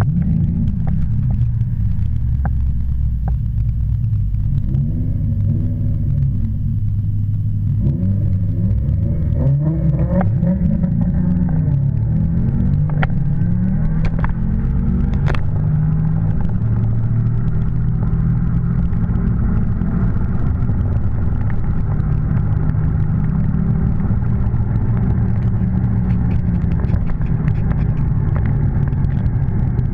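Tuned 2012 Jeep Grand Cherokee SRT8's 6.4-litre HEMI V8, heard from inside the cabin: a deep rumble while lining up, then from about eight seconds in a full-throttle quarter-mile drag-strip pull with revs climbing and dropping through the gear changes, settling into a steady loud engine and road rumble at speed.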